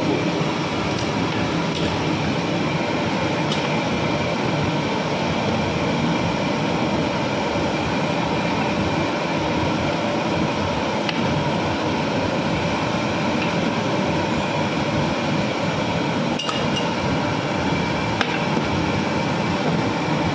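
A steady loud rushing noise with a few light clinks scattered through it, as of the metal stirring rod touching the large aluminium cooking pot.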